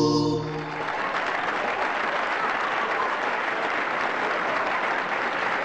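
The song's last held chord of voices and organ breaks off within the first second, then an audience applauds steadily.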